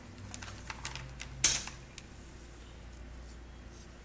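Wax crayon colouring on paper over a hard tabletop: a run of short scratchy strokes and taps in the first two seconds, the sharpest about a second and a half in, then fainter.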